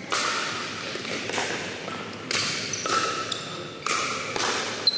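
Pickleball rally in a gym hall: about seven sharp hits of paddles on the plastic ball, each echoing off the hall's walls, with short high squeaks between hits.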